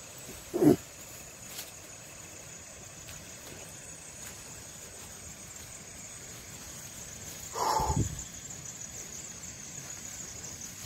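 Night insects, crickets among them, trilling steadily in a high, even chorus. A short thump comes about a second in, and a longer, duller thump near the end.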